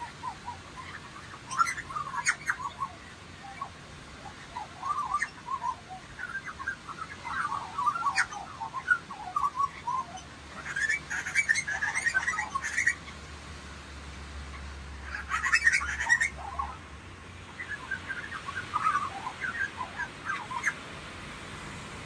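Lorikeets calling in bursts of short, busy chirps every few seconds, with quieter gaps between.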